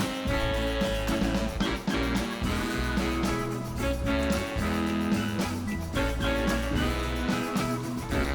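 Background music: a guitar-led rock/country track with a steady beat and a prominent bass line.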